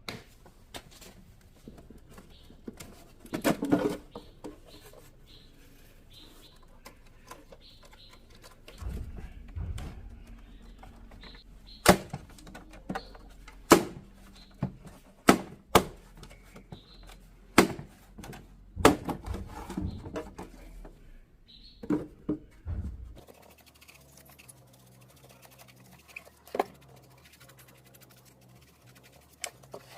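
Irregular sharp clicks and knocks of hands working on a cassette player, with a low steady hum underneath through the middle stretch.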